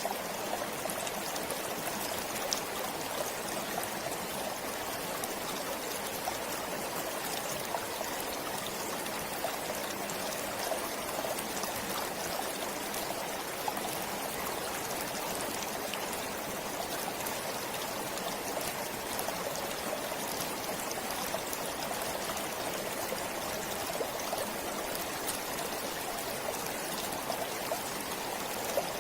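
A forest stream flowing steadily over stones, a continuous rush of water with small trickles and splashes.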